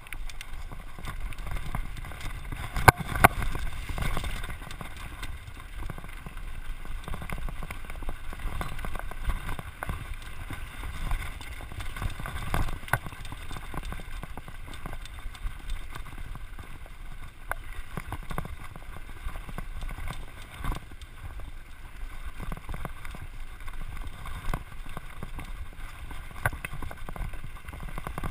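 Mountain bike riding fast down dirt singletrack: a steady rush of wind on the microphone and tyres on dirt, with frequent rattles and knocks from the bike over bumps. One sharp knock comes about three seconds in.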